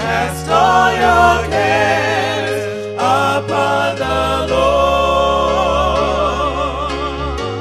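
Gospel song as closing music: voices singing with vibrato over held bass notes that change every second or so.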